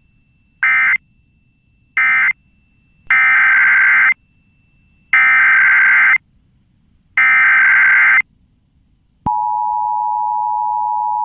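Emergency Alert System data bursts: two short end-of-message bursts, then three bursts of about a second each, the SAME header of the next alert. About nine seconds in, the steady two-tone EAS attention signal starts and holds.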